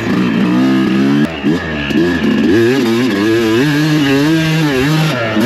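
Dirt bike engine being ridden, its pitch rising and falling repeatedly as the throttle is worked on and off, with a brief drop in level about a second in.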